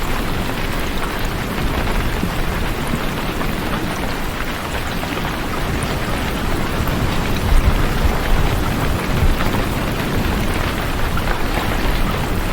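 Steady heavy rain, a dense even hiss of drops, with a low rumble swelling briefly a little past halfway.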